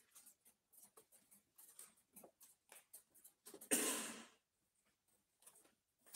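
Faint rustling and small clicks of people moving about in a large hall, with one short, loud burst of noise about three and a half seconds in.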